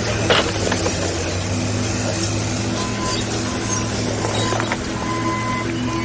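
Steady low mechanical hum, like an engine running, with a sharp click shortly after the start.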